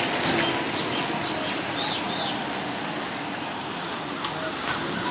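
Street traffic noise: a steady hum of passing cars and motorbikes. A short high tone sounds at the very start, and a few high chirps come about two seconds in.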